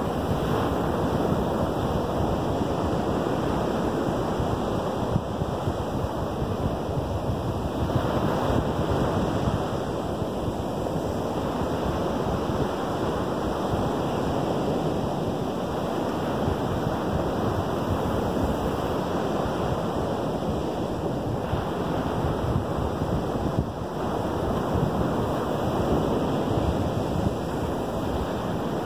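Small Lake Michigan waves breaking and washing up a sandy beach: a steady rushing surf that swells and eases gently as each wave comes in.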